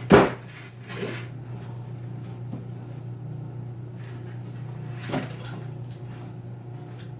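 Panels of a folding tabletop photo light box case being handled and flipped up. A sharp knock comes just after the start, followed by softer knocks and rustles about a second in and again near five seconds.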